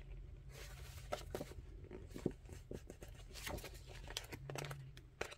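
Paper pages of a sticker activity book being turned and handled: soft rustling broken by several sharp little flaps and taps, the loudest a little over two seconds in.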